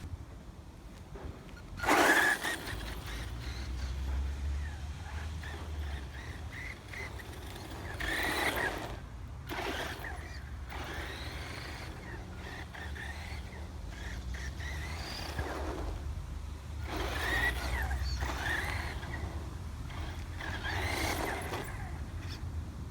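Electric RC off-road buggy running over rough ground, its motor whining up in several bursts as the throttle is opened.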